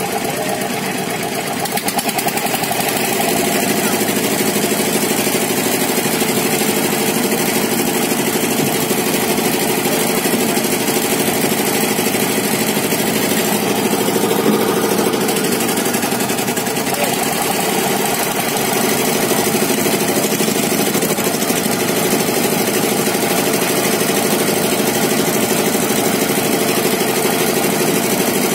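An engine idling steadily with a fast, even chug, growing a little louder about two seconds in.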